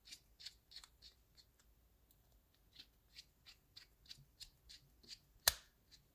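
Faint, irregular ticks of a small Phillips screwdriver turning screws back into the plastic housing of a Hyundai Kona key fob, with one sharper click about five and a half seconds in.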